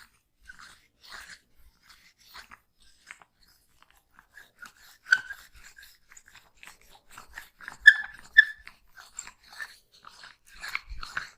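Oiled hands working over skin in a neck and shoulder massage: an irregular run of small wet squelches and smacks, with a few louder ones about five and eight seconds in.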